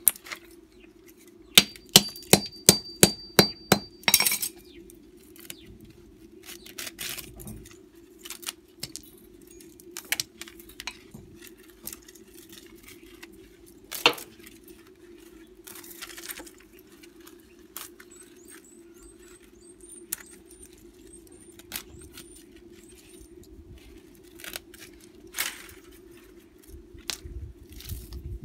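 A quick run of about eight sharp hammer blows with a metallic ring, roughly three a second, on a small electric motor being broken apart for its copper windings. Scattered lighter clinks and taps follow as the broken pieces and copper are handled.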